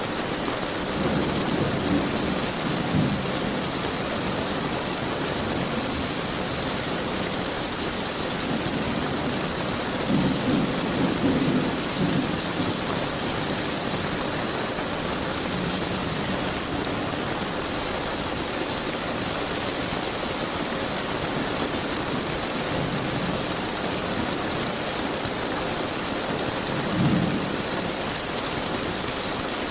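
Steady rain falling with several low rolls of thunder rumbling through it. The strongest roll comes about ten to twelve seconds in, and a short one near the end.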